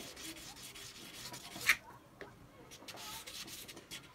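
Double-bevel carving knife blade being stroked back and forth on wet waterproof sandpaper, a scraping rub with each short stroke while the edge is honed. One sharp click stands out about a second and a half in.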